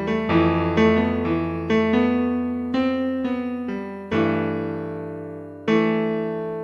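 Background piano music: a melody of quick struck notes over a held bass, then two chords struck and left to ring out, about four and five and a half seconds in.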